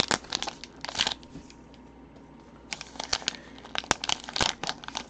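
Shiny black plastic wrapper of an individually packed trading card crinkling as it is handled and pulled open by hand. Dense crackling at first, a lull of about a second and a half, then more crinkling with a few sharp crackles.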